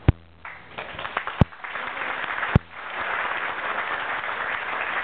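Wedding guests applauding, the clapping starting about a second in and quickly swelling to a steady round. A few sharp, louder clicks stand out over it.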